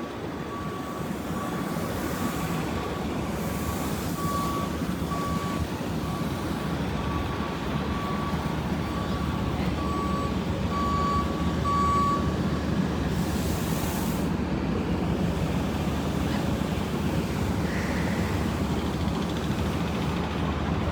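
A vehicle's reversing alarm beeping at one steady pitch about once a second, stopping about twelve seconds in, over a steady low rumble of engines and street noise.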